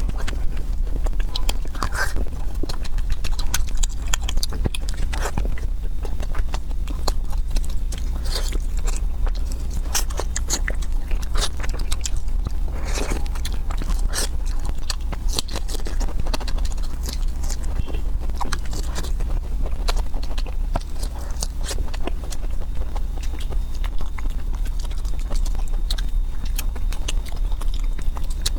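Close-miked eating sounds: a person biting and chewing, with many irregular wet clicks and crackles, over a steady low hum.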